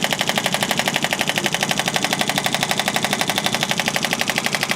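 Radial shockwave therapy handpiece firing into gel on the trapezius and neck: a steady train of sharp clicks, about a dozen a second, that does not change pace.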